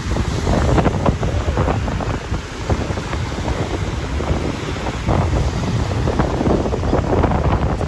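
Wind buffeting the microphone in gusts, with ocean surf washing beneath it.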